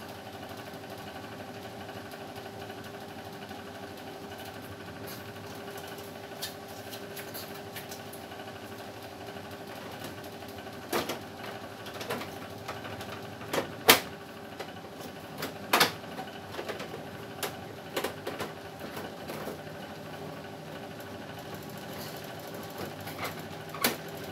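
Plastic clicks and knocks as the front cover panel of a split-type air conditioner indoor unit is handled and snapped back into place: a string of sharp clicks from about halfway through, the loudest near the middle. Under it runs a steady mechanical hum.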